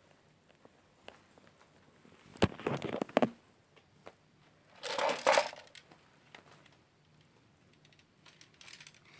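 Two short bursts of crinkling handling noise, about two and a half and five seconds in, the first starting with a sharp click, between stretches of quiet room tone.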